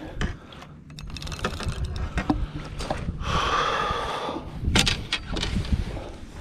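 Knocks and handling noise in a small fishing boat while a hooked jewfish is played on a rod and spinning reel, with a whirring from the reel about three seconds in.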